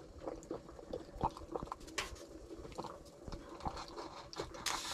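Faint, scattered clicks and taps as the lid of a stainless steel percolator coffee pot sitting on a wood stove is handled and lifted, with a short, brighter rasp near the end.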